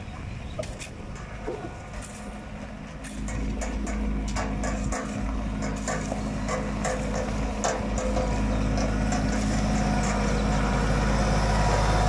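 A steel rake scraping and dragging gravel across a track in repeated strokes. About three seconds in, a compact tractor's engine comes in, running steadily and growing louder toward the end as the scraping goes on over it.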